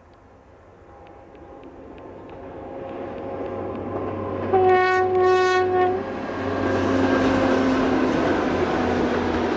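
Passenger train approaching, growing steadily louder; about halfway through the locomotive sounds one steady horn blast of about a second and a half. Then the engine and the wheels on the rails run loud as the train passes close by.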